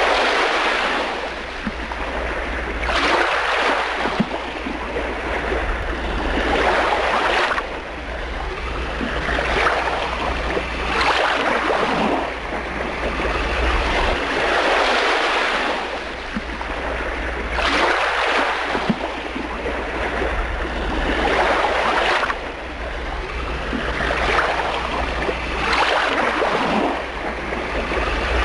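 A rushing noise that swells and fades every three to four seconds, over a steady low rumble.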